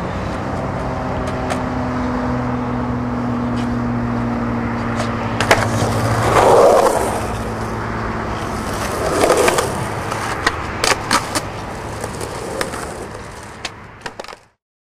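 Skateboard wheels rolling and scraping on a concrete ditch, over a steady low hum, with two louder rough swells of wheel and board noise in the middle. Near the end come a run of sharp clacks of the board's tail and wheels hitting the concrete, and the sound then cuts off.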